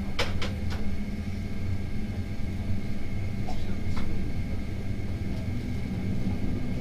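Steady low drone inside the cabin of a Boeing 767-300ER on the ground, with three sharp clicks in the first second and one more about four seconds in.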